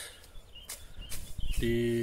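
A few soft clicks and rustles of tall grass being cut by hand, then near the end a man's voice holds a steady 'ehh' for about half a second.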